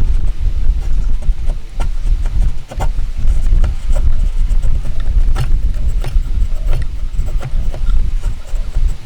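Heavy low rumble of wind buffeting the microphone, with scattered light knocks and clicks of wooden pieces being handled and worked.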